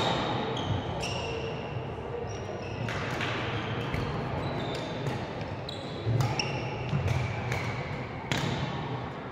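Badminton rally: racket strikes on the shuttlecock every second or two, with short high squeaks of shoes on the court floor, over a low murmur of voices in the hall.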